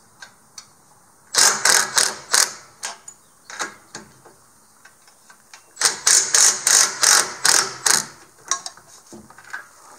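Socket wrench ratcheting in two runs of quick, loud clicks, with a few single clicks between them, as the clamp holding a boat trailer's winch stand on the tongue is loosened.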